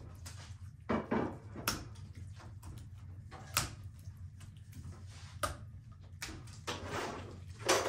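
Kitchen scissors cutting through an otter's rib bones one rib at a time: a series of sharp crunching snaps, about seven, a second or two apart.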